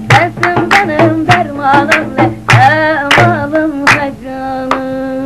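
Singing of a Turkish kına (henna-night) folk song, with sharp percussion beats about two a second. About four seconds in, the beats stop and the song ends on one long held note.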